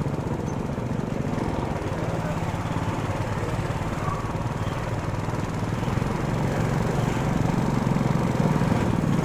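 Engine running steadily, getting somewhat louder from about six seconds in.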